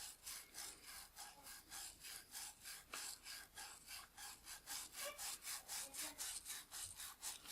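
A brush scrubbing the rubber grip of a camera lens, wet with an isopropyl alcohol and distilled water mix. It makes quick, even back-and-forth strokes, about five a second, faint and scratchy.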